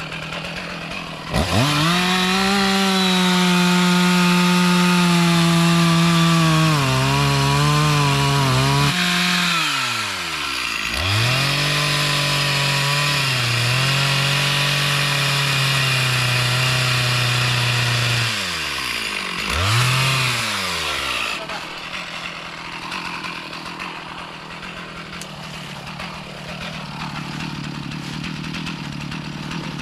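Chainsaw revved to full throttle and cutting, its pitch sagging under load before it drops back to idle about nine seconds in. It revs and cuts again for about seven seconds, gives one short rev, then settles to a steady idle.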